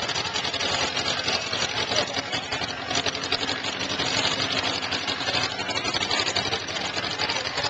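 A small Farmall tractor's engine running at low speed as it rolls past close by, with a rapid, steady firing rhythm.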